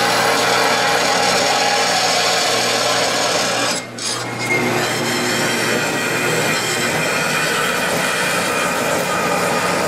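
Vertical metal-cutting bandsaw cutting through a flat bar of spring steel: steady saw noise over a low motor hum. The sound drops out briefly about four seconds in, then the cutting goes on.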